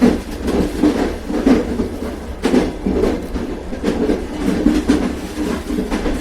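Railway carriage in motion: a steady low rumble with rhythmic clickety-clack knocks of the wheels over rail joints.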